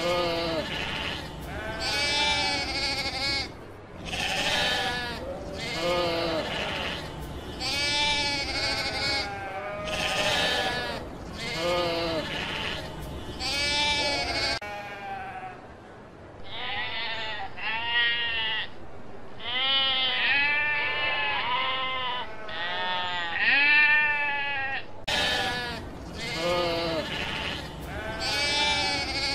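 A flock of sheep bleating over and over, one call after another every second or two, each wavering in pitch. Partway through, the bleats sound duller for about ten seconds.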